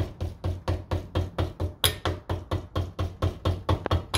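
Double-ended body hammer tapping quickly and evenly on a rubber-encased window belt trim laid over a spoon dolly in a vise, about five light taps a second, flattening hail dents out of the metal core inside the rubber. The tapping stops abruptly at the end.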